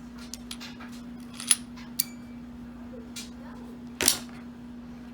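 Metal clicks and clacks from a Taurus PT140 pistol being worked by hand as its takedown pin is turned and pulled out, several light clicks and a louder clack about four seconds in, over a steady low hum.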